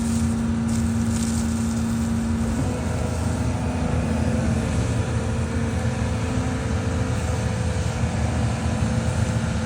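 Heavy machinery engine running steadily under a low rumble, with a held hum that shifts slightly in pitch about two and a half seconds in.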